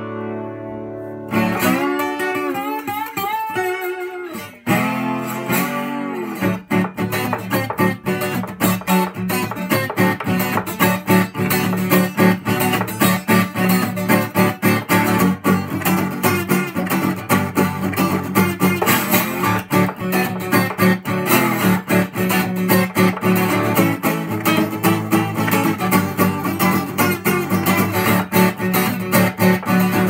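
Seagull S-Series S12+ 12-string acoustic guitar played with a slide. The first notes glide up and down in pitch, and from about six seconds in it settles into a fast, steady picked rhythm.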